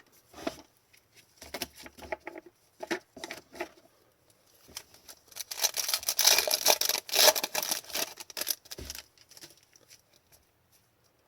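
Trading cards and their plastic or foil packaging being handled: scattered light clicks and slides, with a louder crinkling rustle about halfway through.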